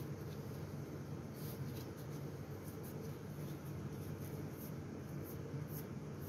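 Soft, irregular scratchy rustling of a paper shop towel as gloved hands wipe off valve-lapping compound, over a steady low hum.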